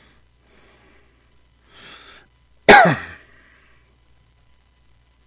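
A man's single loud cough, with pitch falling as it fades, preceded by a breath in.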